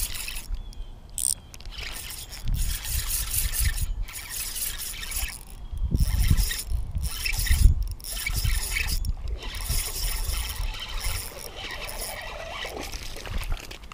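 Wind and rubbing noise on the microphone, uneven and gusty with low rumbles coming and going, while a spinning reel is worked by hand.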